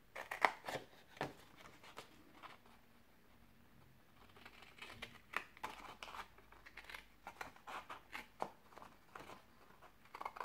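Scissors snipping through cardstock along a fold line: a series of short crisp cuts with paper rustling, pausing for a couple of seconds before the snips resume.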